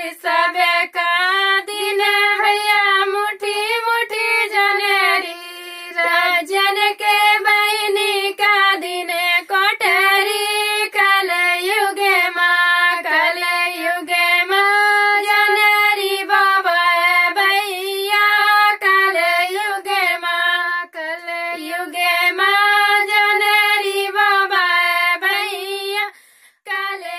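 Two women singing a Bagheli gaari geet folk song together in high voices, unaccompanied. The singing breaks off about a second before the end.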